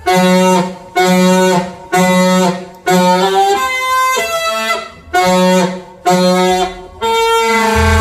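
Alto saxophone playing a run of short held notes, about one a second with brief gaps between them, each with a low bass note under it; near the end a longer held note leads into the full band.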